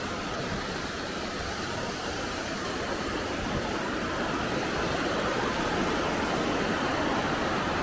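Steady rushing noise of water, slowly growing a little louder.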